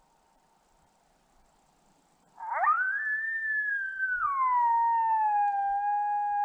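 Coyote howl played from a Lucky Duck Rebel electronic predator call. About two and a half seconds in, a quick rising yip opens a long, clean howl. It holds high, slides down to a lower held note a little past the middle, and cuts off abruptly at the end.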